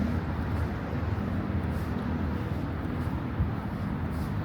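City street ambience: a steady low traffic rumble from passing or idling vehicles under a general hum of the street.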